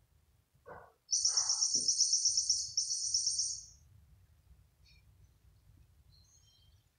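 Electronic squeak mouse cat toy giving a high, rapid chirping trill for about two and a half seconds, with a brief break partway, set off as the cat touches it. Two short, softer lower sounds come just before it.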